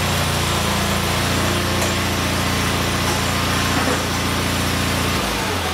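Wheel Horse 520H garden tractor's twin-cylinder Onan engine running steadily as the tractor is driven. A little over five seconds in, the engine note drops to a lower, steady pitch.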